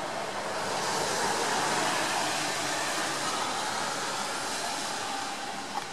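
A vehicle passing: a rush of noise that swells over the first two seconds and slowly fades, with a brief click near the end.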